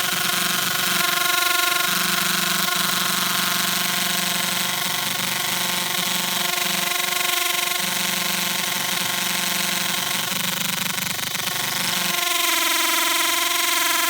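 Electric hammer drill running steadily, spinning a wooden drill bit against a fireboard to make a friction-fire ember. Its whine changes pitch pattern about twelve seconds in.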